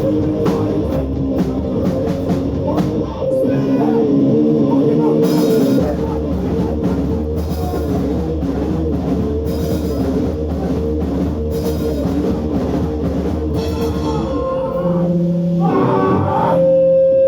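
Live hardcore punk band playing loud with distorted guitar, bass and drums. Near the end the full band drops away, leaving a single steady held tone.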